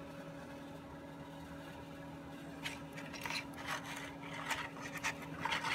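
A painted AT-ST model miniature being handled and turned over in the hands: a run of short scratching and rubbing noises from a little way past the middle, over a steady low hum.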